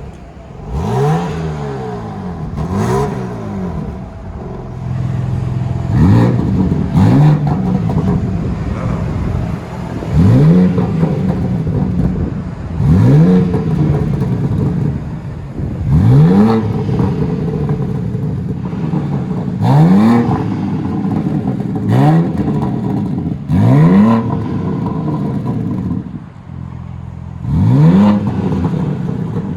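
2021 BMW M3/M4 Competition's twin-turbo straight-six exhaust, revved about a dozen times in short sharp blips, each a quick rise in pitch and loudness that drops back to a steady lower note between blips.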